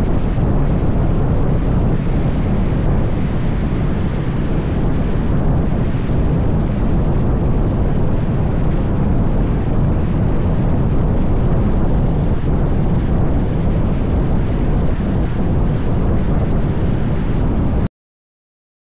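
Wind buffeting the microphone over the road noise of a moving car: a loud, steady low rumble and rush that cuts off suddenly near the end.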